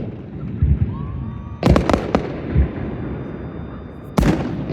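Aerial fireworks shells bursting: a quick cluster of sharp bangs about a second and a half in, and another loud bang near the end, with low rumbling echoes between them.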